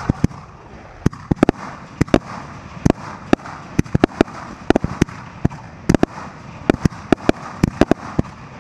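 Fireworks display: an irregular string of sharp bangs, about three or four a second, from shells and comets launching and bursting overhead.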